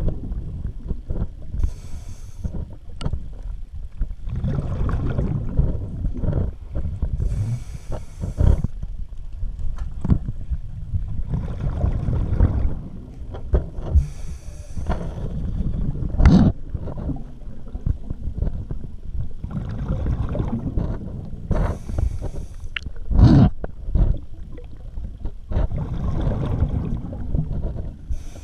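Scuba diver breathing through a regulator underwater: a short hissing inhale about every six to seven seconds, each followed by several seconds of rumbling, bubbling exhaust, with a couple of louder gurgling bursts.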